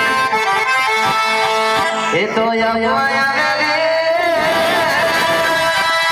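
Band music played loud through a sound system: a wavering, bending lead melody over regular drum beats.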